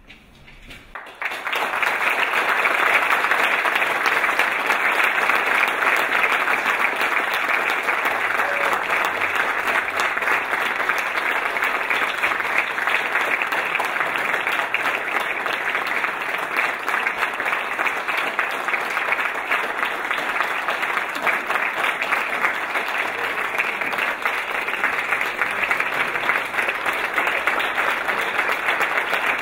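Audience applause in a lecture hall, starting about a second in and going on steadily as a long, full ovation.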